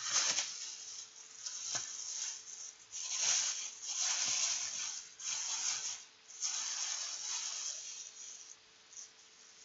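Thin clear plastic bag crinkling and rustling as it is pulled open by hand from around a takeout cup, in a string of rustling spells that die away near the end.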